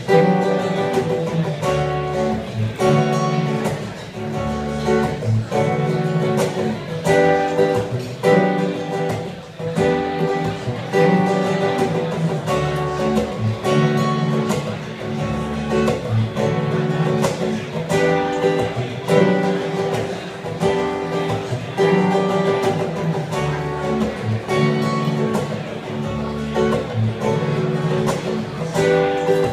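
Acoustic guitar music, strummed, playing a steady run of chords.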